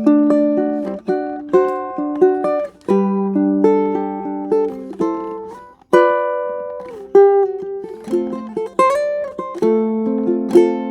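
Ukulele with a torrefied spruce top and mahogany back and sides, fingerpicked: a plucked melody over ringing chords, with a brief break about six seconds in before the next strummed chord.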